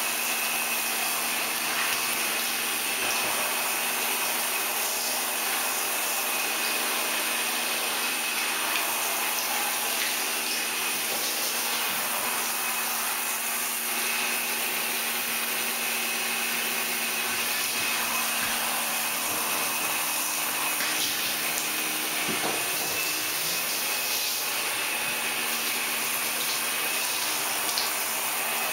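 Hand-held shower head spraying water steadily: a constant rushing hiss with a faint steady hum underneath.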